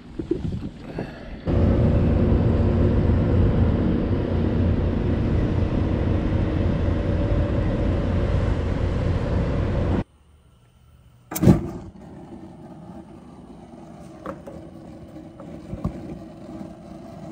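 A boat engine running steadily under heavy wind and water noise, which cuts off abruptly about two-thirds of the way through. Then a much quieter stretch with lit gas grill burners, one loud sharp click and a few small ticks.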